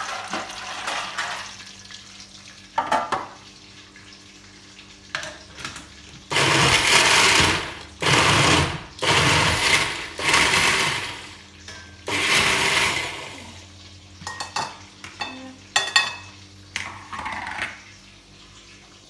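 Kitchen blender switched on in a run of short pulses, about six bursts of a second or so each, blending a mango and avocado milkshake. Clicks and clatter of dishes come before and after the pulses.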